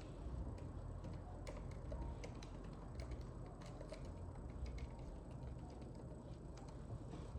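Faint, irregular clicks and taps of a computer mouse and keyboard in use, over a steady low hum.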